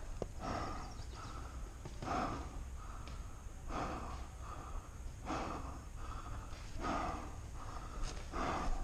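A person breathing hard close to the microphone, a loud noisy breath about every second and a half.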